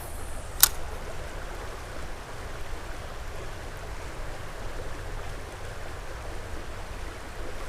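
Creek water running as a steady rushing, with a single sharp click a little over half a second in.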